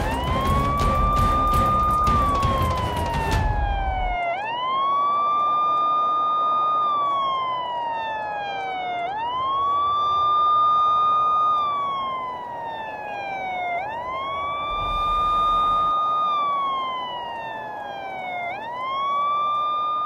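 Emergency-vehicle siren wailing: the tone climbs quickly, holds, then slides down, repeating about every four and a half seconds. A loud, dense noise sounds over the siren at first and cuts off about four seconds in.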